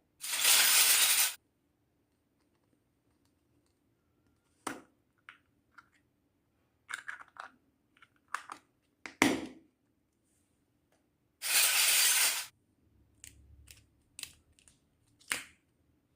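Small hard toy kitchen pieces clicking and clinking as they are handled and set down, in scattered taps. Two loud one-second bursts of hiss-like noise, one just after the start and one about eleven and a half seconds in.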